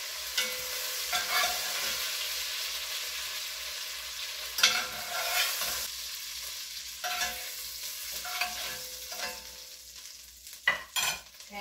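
Beef strips frying in butter in a Dutch oven, a steady sizzle that fades toward the end, with a metal slotted spoon scraping and knocking against the pot as the browned meat is lifted out. The sharpest knock comes a little over four seconds in.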